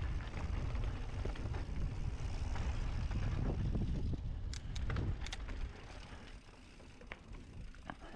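Mountain bike riding down a dirt trail: wind buffeting the microphone over tyres rolling on dirt. A few sharp clicks and rattles from the bike come a little past halfway, and the low rumble eases off about six seconds in.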